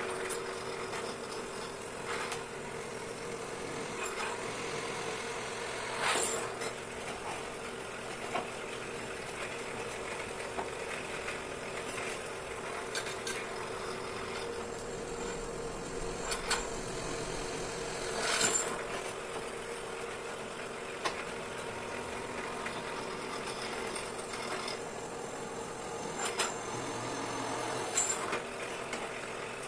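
Benchtop drill press motor running steadily, with a few sharp metallic clanks and knocks as steel angle bars are handled on its table.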